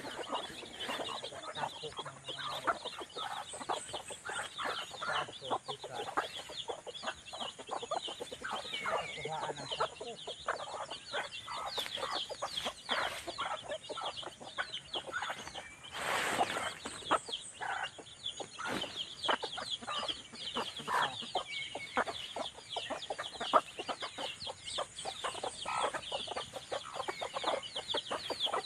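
A flock of free-range chickens clucking while their chicks peep, short calls crowding over one another without a break, with one louder, longer call about sixteen seconds in.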